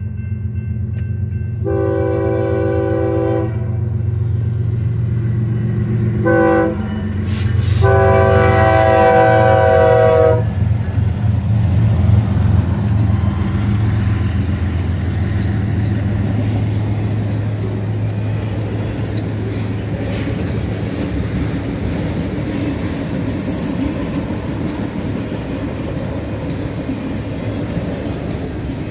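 BNSF diesel freight locomotives sounding their air horn for a road crossing: a long blast, a short blast and another long blast in the first ten seconds, over the engines' steady low rumble. Then the loaded autorack cars roll past with steady wheel-and-rail noise.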